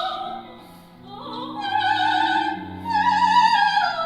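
Operatic singing: a high voice holding two long notes with vibrato, the second a little higher and sliding down as it ends, over sustained orchestral accompaniment.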